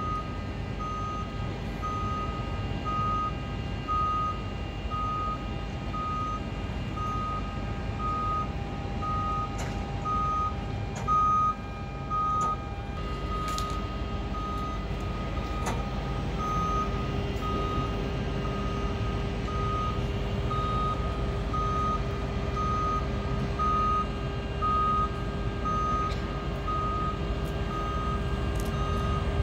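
Mototok Spacer electric towbarless aircraft tug moving with its warning beeper sounding about once a second, over a steady electric drive whine that drops in pitch about halfway through.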